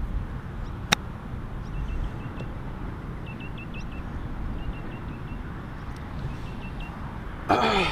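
A golf iron strikes the ball on a short chip shot, a single crisp click about a second in, over a steady low rumble of wind on the microphone. A brief vocal exclamation falling in pitch comes near the end.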